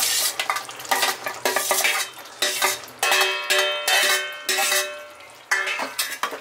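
Steel ladle clattering against a steel plate and a wok as soya chaap pieces are scooped into thick masala and stirred. There are repeated scrapes and knocks, with metal ringing from a run of clinks about three seconds in.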